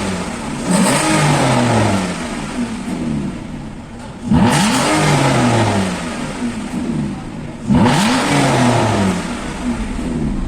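Aston Martin 6.0-litre V12 engine revved in three quick blips, each rising sharply and falling back toward idle.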